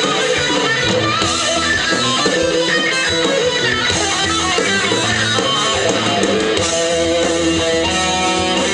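Live heavy metal band playing an instrumental passage led by electric guitar. Near the end the guitar holds long, steady notes.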